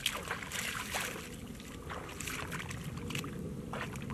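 Bare feet splashing and sloshing through shallow muddy water, in a few scattered steps, over a steady low rumble.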